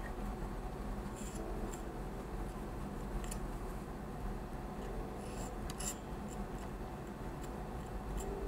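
Faint scraping and light ticks of a metal PC-case slot cover, used as a spatula, spreading thermal paste over a processor, over a low steady hum.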